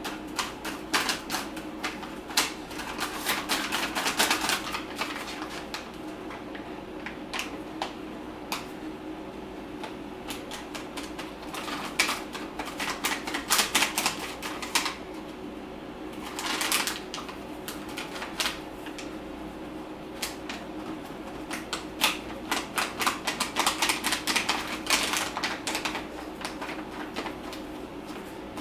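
Bursts of rapid clicking and crackling as an adhesive rubber traction pad is pressed and rubbed down onto a motorcycle tank, over a steady low hum.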